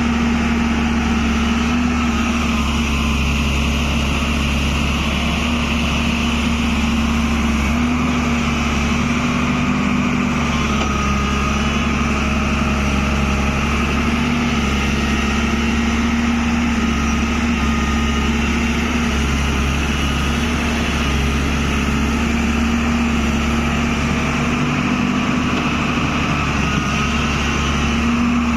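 Tata Hitachi excavator's diesel engine running steadily, with a slight wavering in its pitch.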